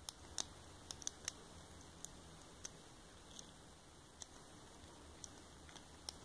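Faint, irregular small clicks of a gem-type lock pick working the pin stack of a Burg Wachter Alutitan padlock under tension: pins being lifted and setting during single pin picking.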